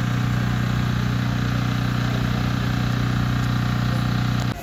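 An engine idling with a steady hum, cutting off suddenly near the end.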